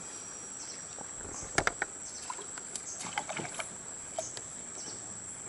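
Steady high-pitched insect trill, with a few light knocks and clicks from fishing gear being handled in a wooden boat; the sharpest pair comes about one and a half seconds in.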